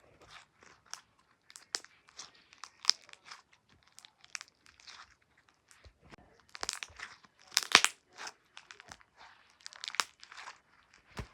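Slime being squeezed and pressed, giving irregular sharp pops and clicks as trapped air bubbles burst, with a quick run of louder pops about seven seconds in.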